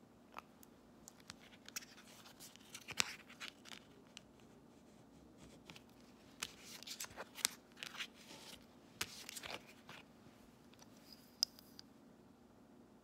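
Faint scraping, tapping and clicking of nail-stamping tools on a metal stamping plate, in irregular clusters, over a steady low hum.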